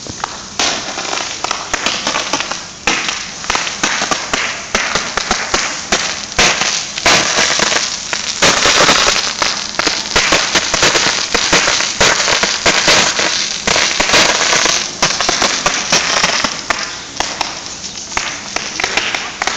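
High-pressure water jet from a fire hydrant hose spraying, with a loud, dense crackling spatter of water coming down. It is loudest in the middle.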